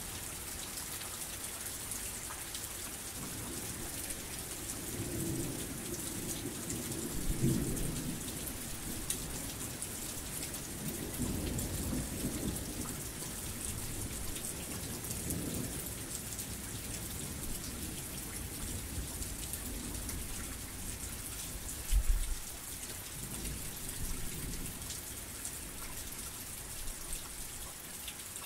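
Heavy rain falling steadily with a dense hiss, while low rumbles of thunder swell and fade several times. A short, sharper low thud stands out about three-quarters of the way through.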